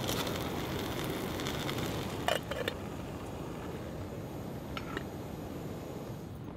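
Canister gas stove burner hissing steadily under a titanium cook pot, with a couple of light clinks of the pot about two and a half seconds in.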